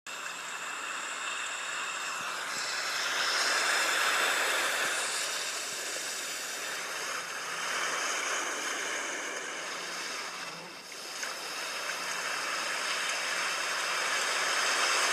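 Rushing river water, a steady wash of flowing water that swells and ebbs in loudness. It cuts in and out abruptly.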